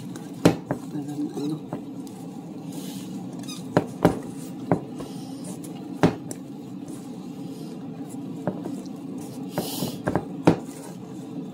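Banana bread batter being mixed by hand in a stainless steel bowl: soft squelching with scattered knocks and clinks against the metal bowl, over a steady low hum.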